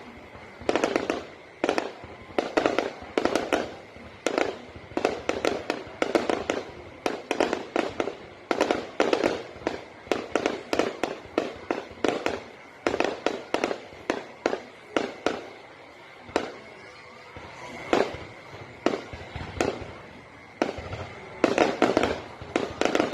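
Fireworks going off in rapid volleys of sharp bangs, several a second, in clusters that swell and fade every second or so.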